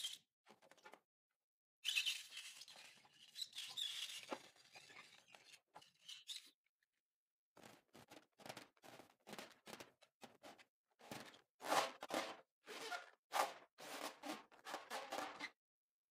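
Hands squeezing and rubbing wet, filled latex balloons: rubber squeaks and squishes. A dense stretch of rubbing comes first, then a run of separate squeezes, one or two a second.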